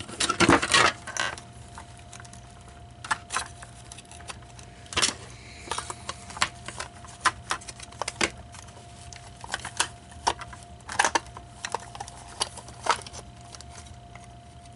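Scattered small clicks and taps of hard plastic and metal parts being handled while an animatronic figure is put back together, with a faint steady tone underneath.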